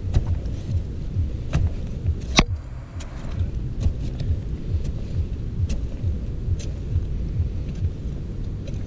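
Digging in a termite mound: scattered sharp knocks and scrapes of a tool in the earth, the loudest about two and a half seconds in, over a steady low pulsing rumble.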